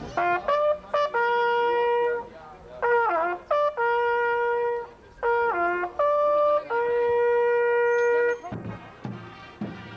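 Brass post horn sounding a call: short notes and quick slurs between three long notes held on the same pitch, the call ending a little over eight seconds in.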